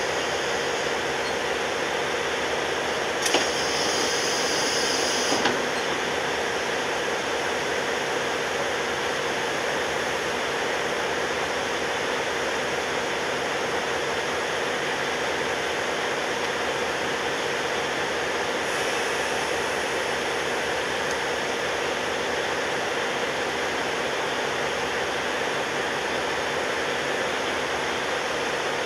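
Steady drone of a train standing with its DE10 diesel-hydraulic locomotives idling. A click about three seconds in is followed by a hiss lasting about two seconds.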